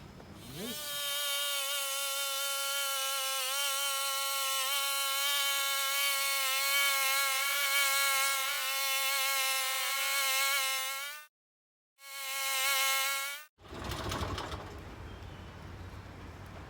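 Sawmill running through a log, its sound sped up with the footage into a high, steady buzzing whine. The pitch rises at the start and the sound cuts off abruptly twice.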